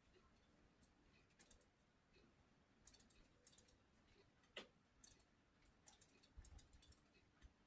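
Near silence with faint, scattered small clicks and ticks, one sharper click about halfway through.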